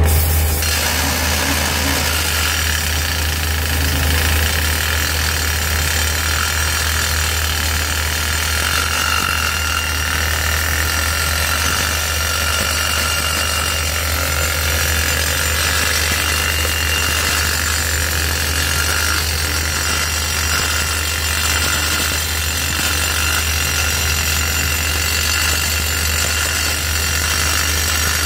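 Hydraulic drill on a skid-steer-mounted mast boring a 41 mm hole into reinforced concrete, a steady harsh drilling noise that starts abruptly right at the beginning, over the skid steer's engine running with a steady low hum.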